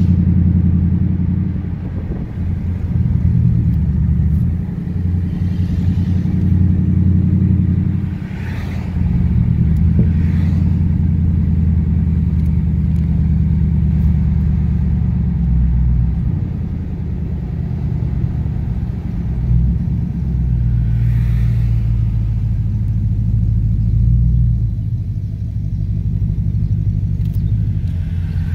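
Low engine and exhaust rumble of a 1962 Dodge Custom 880 cruising in traffic, heard from inside a following car. It swells and eases several times as the car speeds up and backs off.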